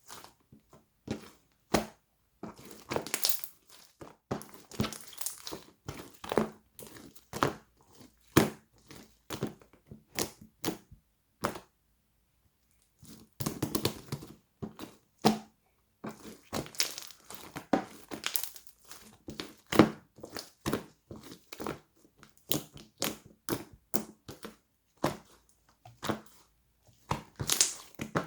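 Slime full of trapped air bubbles being squished and pressed by hand, giving irregular crackling pops and crinkles in clusters, with a brief pause about halfway through.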